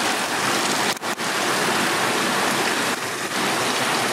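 Steady rushing of mountain stream water over rocks, an even loud hiss that drops out for an instant about a second in.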